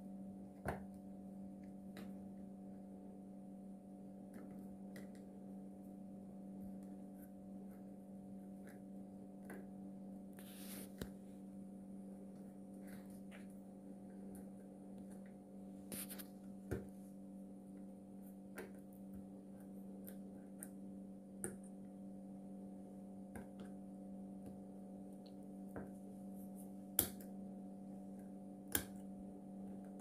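Scattered small clicks and scrapes of a metal pick working the silicone coating off a dishwasher control board around a burned MOSFET pack, with a few sharper clicks, over a steady low hum.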